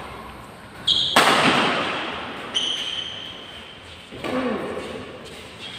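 Badminton rally: racket hits on the shuttlecock, the loudest about a second in and another around four seconds, echoing in the hall, with high shoe squeaks on the tiled court floor.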